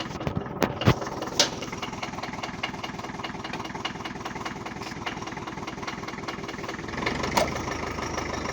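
Engine of an old work vehicle running steadily with an even chugging beat, with a few sharp knocks and rattles in the first second and a half. It grows a little louder and heavier about seven seconds in.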